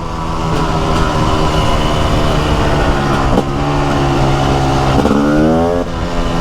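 TM SMR 300 supermoto's single-cylinder two-stroke engine pulling under way. Its pitch drops suddenly about three seconds in at a gear change, climbs again, and drops once more near the end at the next shift.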